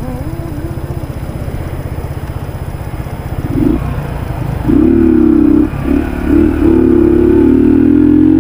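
Yamaha YBR125G motorcycle's single-cylinder four-stroke engine idling with an even, rapid putter, then revving up as the bike pulls away. There are short dips around a gear change about six seconds in, then it pulls loud and steady in the next gear.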